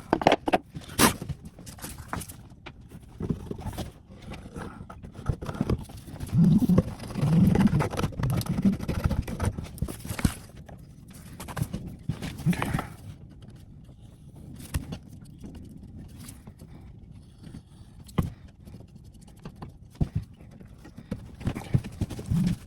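Irregular wooden knocks, taps and clicks as the wood pieces of a table-leg repair are handled and fitted on a workbench, with stretches of scraping and rubbing. The knocks are busiest in the first half and sparser later on.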